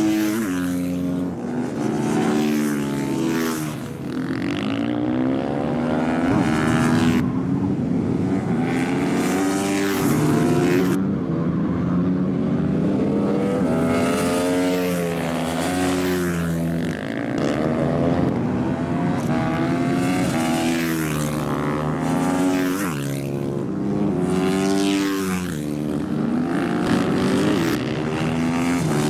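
Supermoto motorcycles riding past on a tarmac circuit, their engines revving up and dropping back again and again as the riders accelerate, shift gears and brake for the turns.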